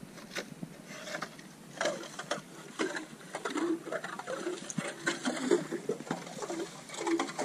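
Hand ice auger boring through lake ice: rapid, repeated crunching and scraping clicks, with short voice-like sounds over it in the second half.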